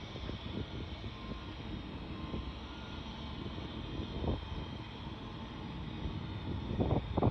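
Steady outdoor rumble with wind buffeting the microphone, the gusts growing stronger near the end.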